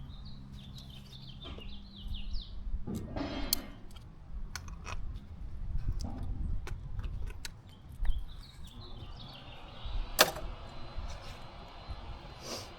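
A small bird singing in runs of short, quickly repeated high chirps, near the start and again about three-quarters through. Scattered sharp clicks and a few louder knocks sound over it, the loudest about ten seconds in.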